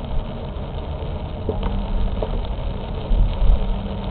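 A car driving on a wet street, heard from inside the cabin: a steady low rumble of engine and tyres, with a steady hum coming in about two seconds in and a few faint ticks.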